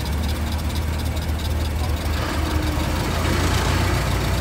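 Ford Model T's four-cylinder engine running at low road speed: a steady low rumble heard from inside the open car, with a fast even ticking over it for the first couple of seconds and more noise building about two seconds in.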